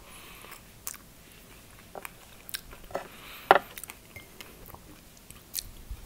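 Close-miked mouth sounds of eating a soft curd mousse from a spoon: lip smacks and wet clicks with short breathy patches, the loudest click about three and a half seconds in.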